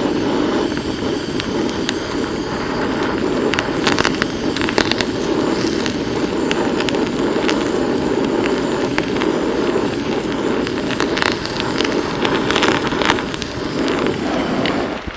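Flame burning over a sizzling pan where sweet black-tea liqueur has been added to chicken: a steady rush with frequent crackles. It cuts off rather suddenly about fourteen seconds in.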